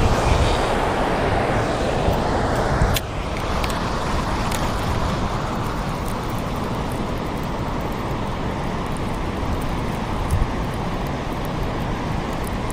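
Steady rush of turbulent water churning below a dam. The level dips slightly about three seconds in.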